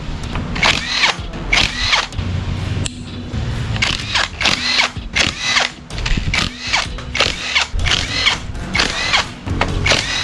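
Handheld power tool running in short repeated bursts, with its pitch sweeping within each burst, as screws are undone from a motorcycle engine casing.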